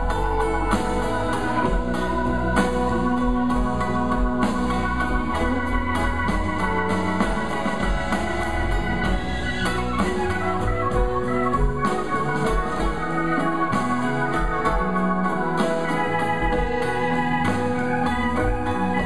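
A live band playing an instrumental: electric guitar through a Two-Rock Classic Reverb amp, acoustic guitar, electric bass and a drum kit, with long held organ-like chords. Steady beat, no singing.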